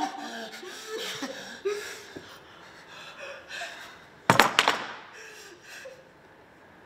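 A wooden stick, used as a prop hot iron, thrown down and clattering on a stage floor: a few sharp hits in quick succession about four seconds in.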